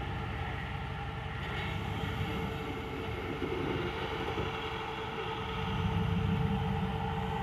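Rock-crawler's engine running at low revs as the rig crawls up a steep boulder climb, a steady low rumble that grows louder about six seconds in.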